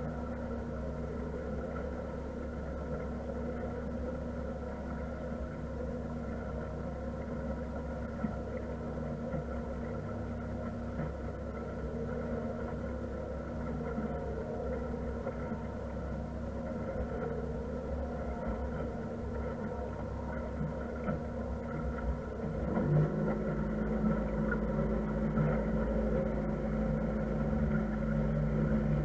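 A motor cruiser's engine running steadily under way: a constant drone over a low rumble. About 23 seconds in, its note changes and it gets louder as the engine speed is changed.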